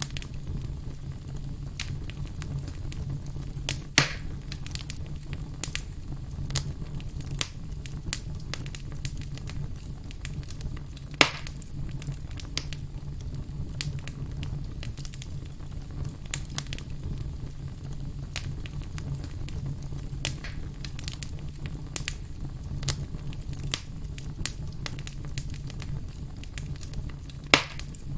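Burning firewood crackling, with a steady low rumble of the flames and scattered sharp pops. Three louder snaps come about four, eleven and twenty-seven seconds in.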